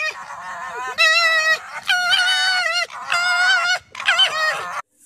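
An animal's loud, repeated calls: about four drawn-out calls with a wavering pitch, each a second or less, following one another closely.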